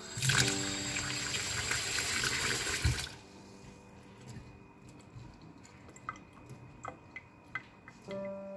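Tap water running into a steel bowl of rice in a sink for about three seconds and cutting off suddenly. Then a hand swishes and rubs the rice in the water, with small splashes and clicks, over faint background music.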